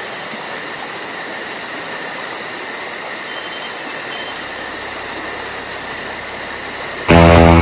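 Crickets chirping in rapid, even pulses, about five a second, over a constant high insect buzz and a steady hiss. About seven seconds in, loud rock music with electric guitar comes in suddenly.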